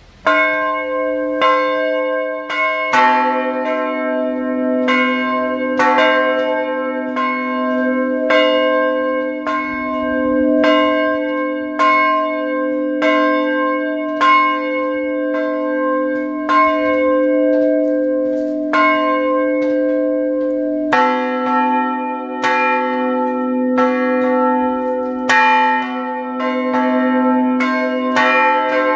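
Two large bronze bells swinging on wheels in a steel frame, their clappers striking about once a second, each strike ringing on over the last. One bell rings from the start and the second, lower-pitched bell joins in about three seconds in.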